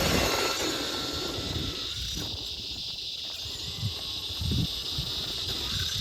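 Traxxas Summit RC truck's stock electric motor and drivetrain driven hard through sand: a steady high-pitched whine with irregular low thumps and rumbles from the chassis and suspension.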